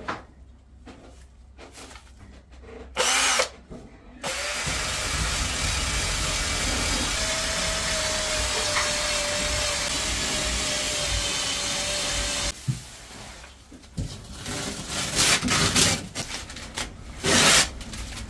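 Handheld power tool given a short burst, then run steadily for about eight seconds before it stops suddenly; scattered knocks follow.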